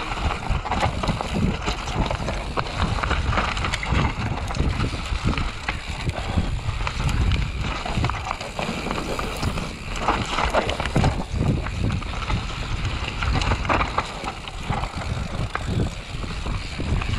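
Bicycle ridden fast over a rough dirt track: tyres rolling over the ground with a steady low rumble, and frequent knocks and rattles as the bike jolts over bumps.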